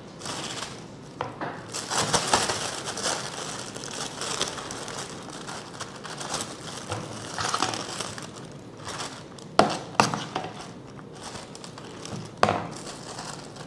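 Metal spoon scooping thick shrimp batter out of a plastic bowl into a plastic bag: the bag crinkles and the wet batter squishes, while the spoon scrapes and clicks against the bowl. There are a few sharper knocks, about ten seconds in and again near the end.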